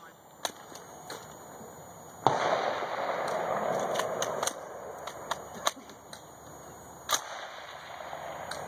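Smith & Wesson M&P15 AR-15 rifle in .223 firing about ten single shots at uneven intervals during a timed stage, the loudest about two seconds in and followed by a couple of seconds of rushing noise.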